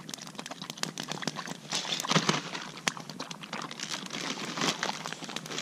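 A dog eating kibble soaked in warm water from a plastic bowl, with many small irregular clicks and crunches. A plastic bag crinkles near the end and a campfire crackles.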